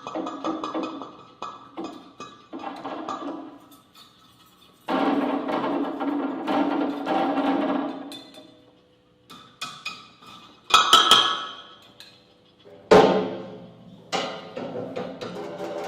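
Experimental percussion music: struck wooden and other percussive sounds in loose clusters with pauses between them, then a single loud strike that rings and fades, followed by another.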